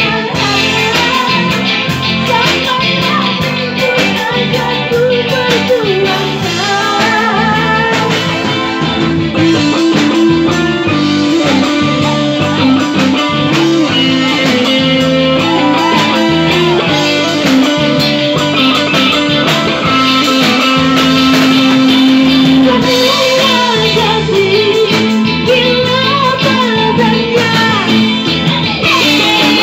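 Live band music with a prominent guitar, loud and continuous.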